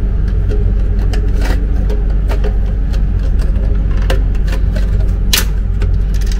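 Plastic clicks and knocks as a new bottom-entry toilet fill valve is handled and pushed down into its seat in the cistern, about half a dozen sharp taps with the loudest near the end. Under them runs a steady low hum.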